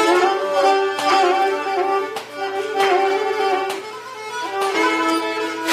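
Pontic lyra (kemenche) bowed, playing a melody in sustained, slightly wavering notes, with a short lull about four seconds in before the playing picks up again.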